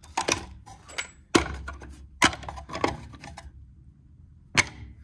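Brass pipe fittings and caps clinking and rattling as a hand sorts through them in a plastic compartment organizer: a handful of sharp, irregularly spaced clinks with small rattles between.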